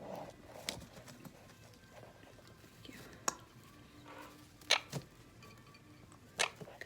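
A few sharp clicks and taps, spaced irregularly, from handling a squirming young Quaker parrot during hand-feeding.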